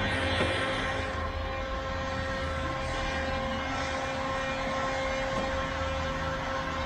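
A motor or fan running steadily, a constant whine over an airy hiss and low hum.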